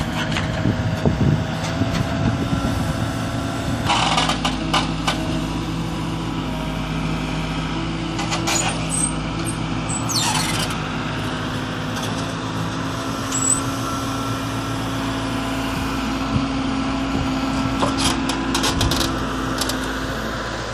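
Diesel engine of a JCB backhoe loader running steadily at low revs, with a few brief rattles and clanks.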